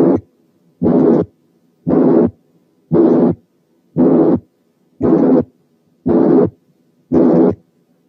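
Stethoscope recording of a harsh systolic heart murmur, a rough noise with no smooth blowing quality, filling each heartbeat. Eight beats, about one a second.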